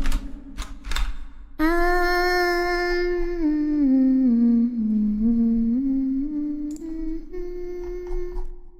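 A few sharp clicks, then a woman humming a slow, wordless tune in long held notes that step down in pitch and then climb back up, fading out near the end.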